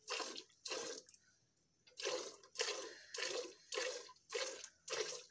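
Cow being milked by hand: jets of milk squirting into a steel bucket partly full of milk, one short squirt with each squeeze, nearly two a second, with a brief pause about a second in.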